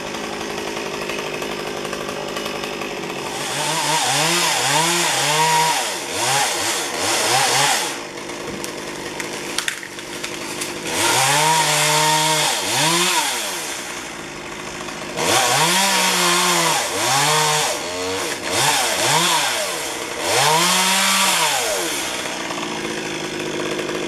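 Two-stroke chainsaw idling and revved up in several bursts of a few seconds each while cutting limbs in a tree, its pitch rising and sagging with each cut and dropping back to idle in between.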